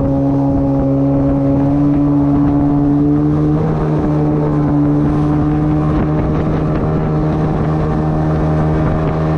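Outboard motor with a water-jet unit pushing an inflatable PVC boat, running steadily at speed, with water rushing past the hull. Its pitch rises slightly about three and a half seconds in.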